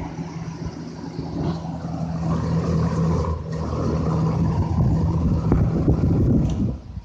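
Lakewood P-23 box fan running on high with its second-generation propeller: a steady motor hum under the rush of moving air, which buffets the microphone.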